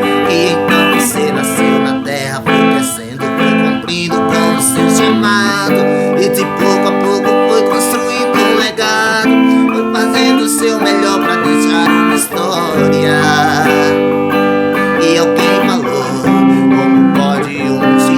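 Instrumental music led by strummed and plucked guitar.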